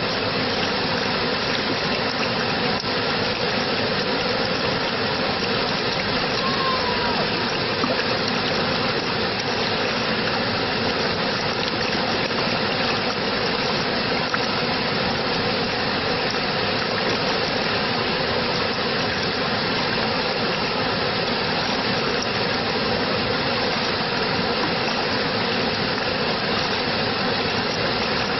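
Steady, continuous rush of running water, even and unbroken, with one faint short chirp about six seconds in.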